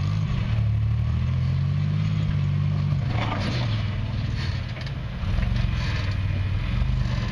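An off-road vehicle's engine running, its pitch rising over the first couple of seconds and then easing back down, with a few short knocks and rattles about three seconds in.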